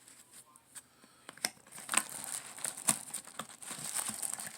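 Packaging crinkling and rustling as it is handled, with a few sharp clicks. It starts after about a second and a half of near quiet.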